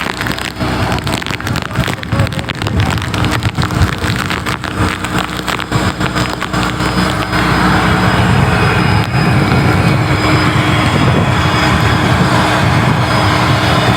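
Fishing boat's engine running steadily under rain and wind buffeting the microphone, with many sharp crackles and knocks through the first half before the noise settles into a steady rush.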